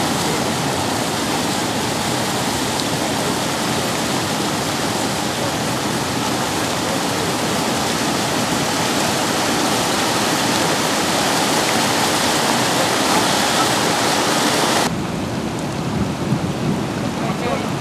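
Floodwater rushing over a concrete lake overflow weir and churning white below it, a loud steady rush of water. About fifteen seconds in the sound cuts to a duller, softer rush of water.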